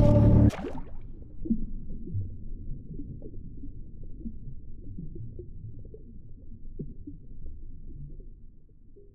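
Loud soundtrack music cuts off abruptly about half a second in, leaving a low, uneven rumble from the teaser's sound design that slowly fades out.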